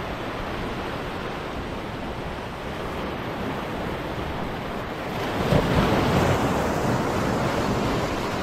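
Small sea waves washing in and foaming over a rocky shoreline, with a louder surge about five seconds in.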